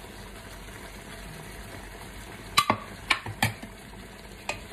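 Wok of pork and chicken adobo in soy-vinegar liquid cooking on the stove with a steady low sizzle. From about halfway in come a few sharp clatters of the plate and wooden spoon against the wok as stirring begins.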